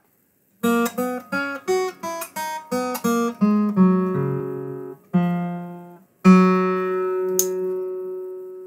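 Acoustic guitar music: a quick run of plucked notes, then a few longer notes left to ring out and fade.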